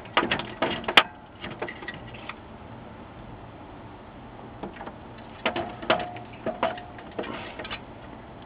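Hard plastic clicks and knocks from the HP LaserJet 4P's plastic case and top cover being handled and pressed back into place, in scattered groups, the loudest a sharp click about a second in.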